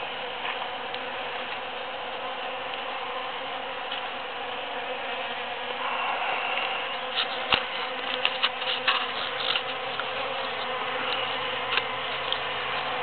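Bees buzzing steadily while they forage on large cactus flowers, the buzz growing louder about six seconds in. A quick run of sharp clicks comes in the middle, with a couple more near the end.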